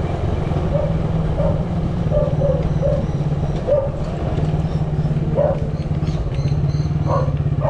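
Motorcycle engine running steadily at low speed while riding, a pulsing low rumble, with a few short higher-pitched calls over it.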